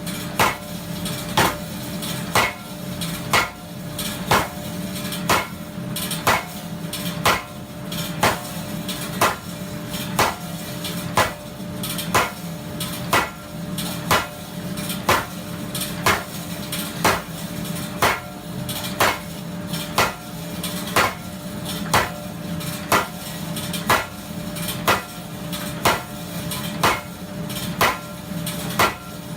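Custom-built blacksmith's power hammer striking hot steel at an even pace of about one blow a second as it draws down a 30 mm by 10 mm bar, with the machine's steady motor hum underneath.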